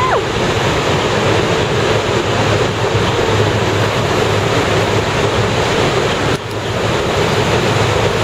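Steady roar of the American Falls at Niagara and the churning river below, heard from a tour boat, with wind buffeting the microphone.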